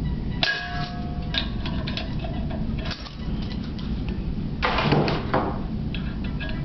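Handling noises at the metal regulator and flowmeter on an oxygen cylinder. A short metallic ring comes about half a second in and lasts under a second, and a louder, noisier burst comes a little before five seconds in.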